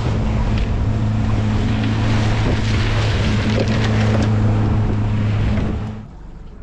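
Small motorboat running underway: a steady engine hum with wind and water rushing past the hull and buffeting the microphone. About six seconds in it drops away sharply to a quieter wash of water.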